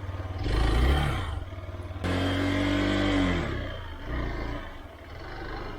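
Motorcycle engine running at low revs, revved hard twice, with a short blip after, as the bike slithers on a slippery off-road track. The longer second rev dies away with falling pitch.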